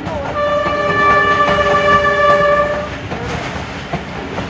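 A locomotive horn sounds one long steady blast of about two and a half seconds, over the continuous rumble and clatter of the coach wheels on the rails.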